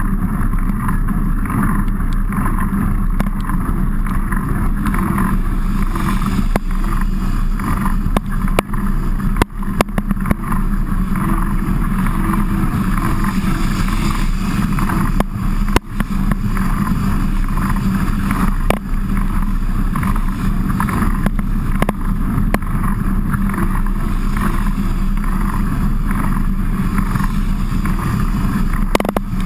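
Steady rush of wind and rolling mountain-bike noise on a bike-mounted action camera's microphone while riding in the rain, with a few sharp knocks around the middle.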